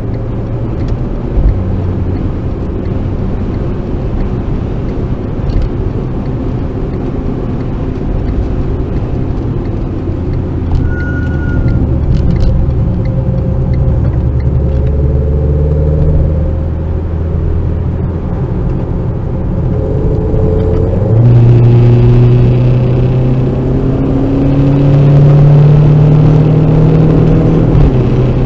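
Renault Clio RS's 1.6-litre turbocharged four-cylinder engine heard from inside the cabin, running steadily at part throttle, then about two-thirds of the way through getting louder and revving up under hard acceleration, its pitch climbing, dropping at a gear change and climbing again.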